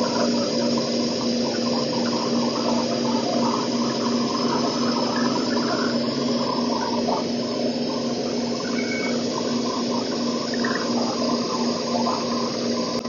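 Shopsmith bandsaw running steadily with a wide resawing blade cutting through a thick cherry board: a constant motor hum under the rasp of the blade in the wood.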